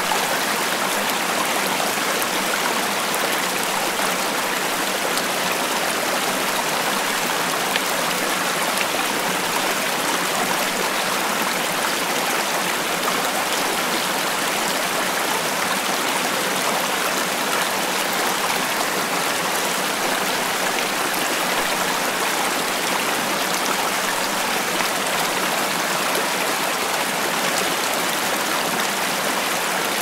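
Small mountain creek flowing over rocks and little cascades: a steady splashing rush of water with no change.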